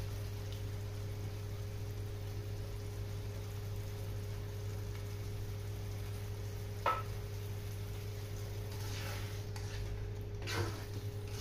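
Cream sauce with tuna sizzling gently in a frying pan over a steady low hum, with a single sharp tap about seven seconds in and a spatula stirring through the sauce near the end.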